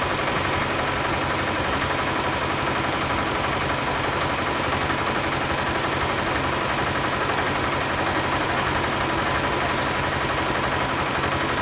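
Diesel bus engine idling steadily, with an even low, pulsing run that does not change.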